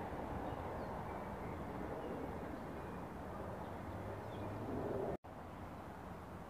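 Low, steady rumble of a New York City subway train running away on open-air track, with a few faint bird chirps above it. The sound drops out for an instant about five seconds in, then the rumble carries on a little quieter.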